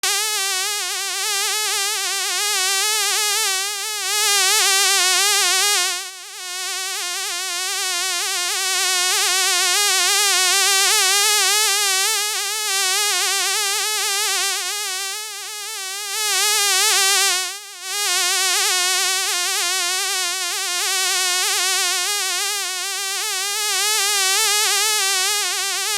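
Fly buzzing in flight: one continuous high buzz whose pitch wavers quickly up and down. It briefly drops away twice, about six seconds in and again just before eighteen seconds.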